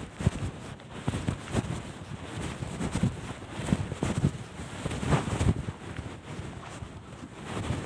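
Irregular muffled low rumbles and thuds, about one every half second to a second, with the sound of something buffeting or rubbing against the microphone.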